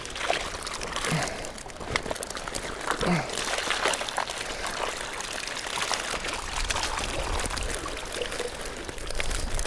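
Water pouring and trickling out through the mesh of a fishing keepnet as it is drawn up out of the water, with small splashes and the wet mesh rustling.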